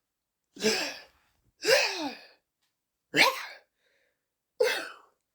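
A person's voice making zombie sound effects: four short, harsh, breathy snarls about a second and a half apart, the second one longer with a falling pitch.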